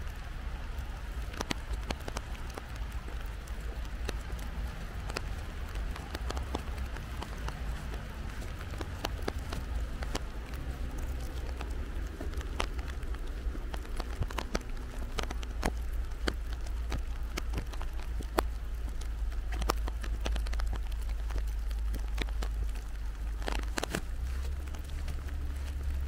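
Rain falling, with many separate drops ticking sharply close by over a steady hiss and a constant low rumble.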